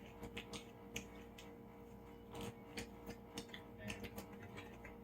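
Someone eating close to the microphone: faint irregular chewing and mouth clicks, a few a second, over a steady low hum.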